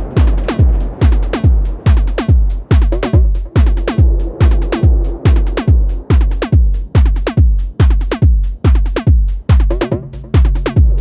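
Electronic drum-machine groove from a 1010 Bluebox run through a Befaco Iroi effects module. A steady kick drum hits about twice a second under glitchy, modulated clicks that sweep down in pitch. A held drone tone comes in twice.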